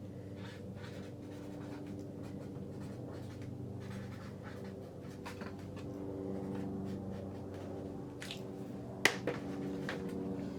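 Light scratching and rustling of potting soil being sprinkled over seeds in a seed-cell tray, with one sharp click about nine seconds in. Under it runs a soft bed of steady held tones that shift in pitch every couple of seconds.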